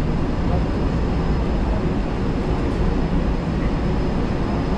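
Cabin noise inside a city bus under way: a steady low rumble of engine and road noise, with a faint steady high tone above it.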